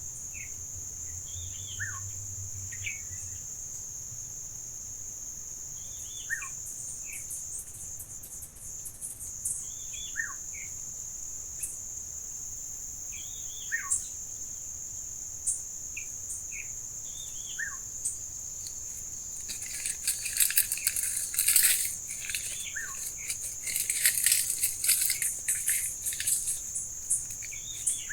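Insects keep up a steady high-pitched drone while a bird gives short, falling chirps every second or two. About two-thirds of the way through, a louder stretch of rapid, scratchy chattering and clicking sets in.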